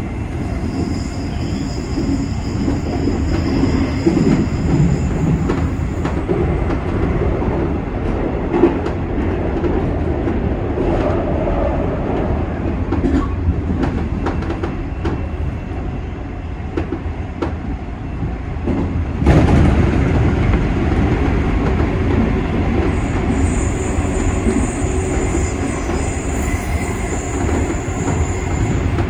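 JNR 201 series electric train running at speed: steady rumbling running noise with wheels clicking over rail joints and a faint high steady whine at times. The running noise gets suddenly louder about two-thirds of the way through.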